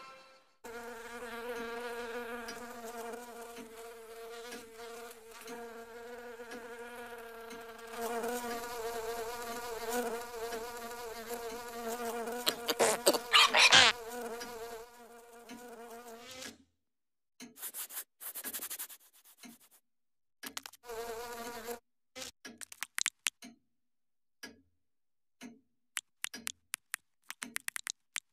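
Cartoon housefly buzzing in flight: a steady, wavering buzz, with a run of loud crackling clicks about halfway that is the loudest part. The buzz then breaks into short spurts, and many rapid ticks follow near the end.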